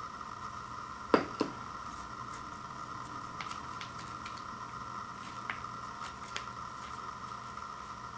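A ceramic bowl set down on a wood floor with two quick knocks about a second in, followed by scattered light clicks of a small metal tool handled over the bowl. A faint steady hum sits underneath.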